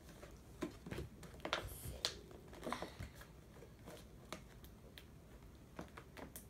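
Toy packaging being handled and pried at while someone tries to open it: faint, scattered clicks and crinkles.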